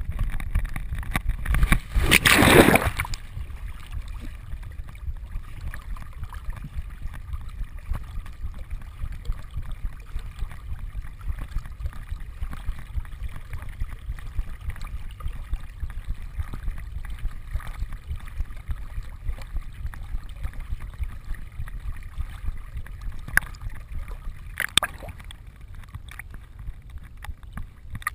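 A retriever plunges into a pond with a loud splash about two seconds in, then swims: steady water sloshing and gurgling right against the vest-mounted camera, with a couple of sharper splashes near the end.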